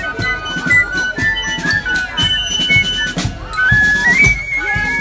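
Marching band music passing in a procession: a tune of held high notes on flutes over regular drum beats.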